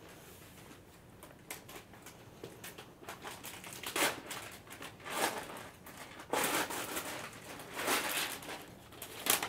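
Crinkling and rustling of a sterile gown package's paper wrapping as it is opened and unfolded, in irregular bursts that grow louder about halfway through.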